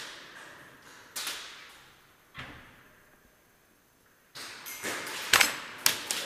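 Gas blowback airsoft gun (GHK PDW) firing sharp, snapping shots that echo through a large hall. There are two single shots, then a quick run of louder shots near the end.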